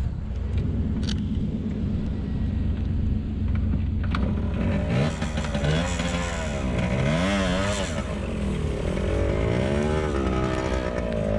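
1977 Yamaha DT100's 100cc two-stroke single-cylinder engine running again after stalling: a steady idle at first, then the revs rising and falling several times from about five seconds in as the bike pulls away.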